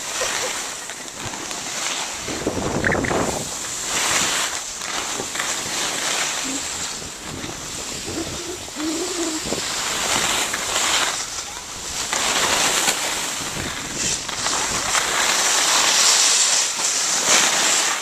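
Skis sliding and scraping over packed snow: a continuous hiss that swells and fades with each turn. Faint voices come in about halfway through.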